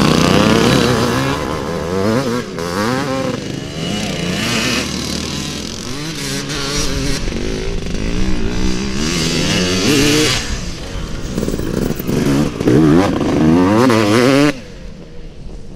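Motocross bike engines revving up and down over and over as the bikes ride through turns on the dirt track. The sound drops sharply near the end.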